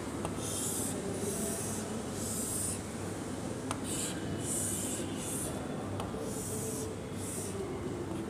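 Chalk drawing lines on a chalkboard: a series of short scraping strokes, roughly one a second, with a couple of sharp taps of the chalk against the board.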